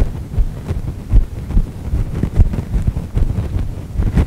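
Irregular low rumble on the microphone, like wind buffeting, rising and falling unevenly.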